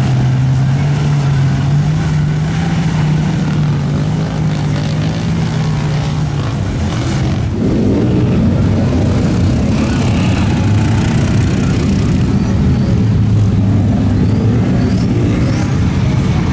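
Off-road truck engines: one holds a steady note, then about seven and a half seconds in a louder engine comes in, revving up and down.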